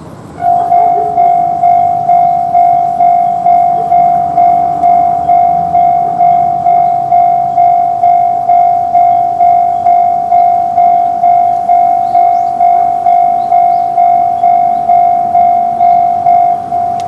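Japanese railway level crossing alarm sounding its repeated 'kan-kan' ding, about one and a half strikes a second, starting suddenly about half a second in: the crossing's warning that a train is approaching. It gets somewhat quieter near the end.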